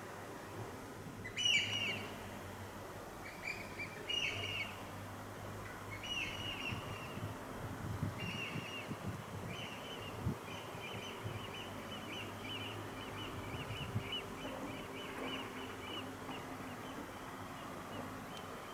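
A bird calling: a few sharp, separate calls a second or two apart, then a quicker run of calls, about three a second, from about ten seconds in.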